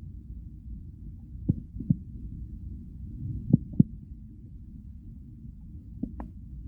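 Close-up sounds of a person's stomach: a steady low, muffled rumble with three pairs of short soft thuds, spread at uneven intervals.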